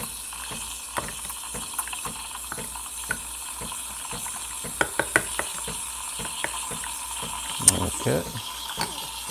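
Breville Barista Express steam wand hissing steadily as it steams milk in a stainless pitcher. Over it, a spoon clinks lightly against a cup two or three times a second as chocolate is stirred. There is a brief louder sound about eight seconds in.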